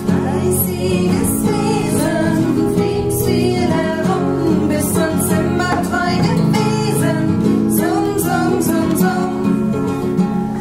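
Music: a song with a singing voice and guitar accompaniment.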